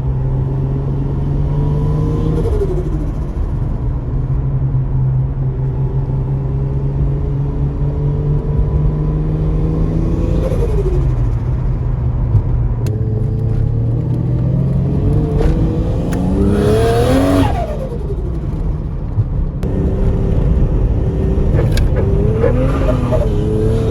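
R33 Skyline's turbocharged RB25 straight-six pulling up through the gears under load. Its pitch climbs steadily and drops at each shift, about two and a half seconds in and again about ten seconds in. About seventeen seconds in it revs higher and then lifts off with a brief loud whoosh.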